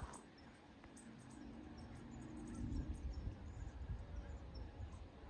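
Quiet outdoor farm ambience: small, repeated high chirps over a low wind rumble on the microphone, with a faint low drone for about a second and a half about two seconds in.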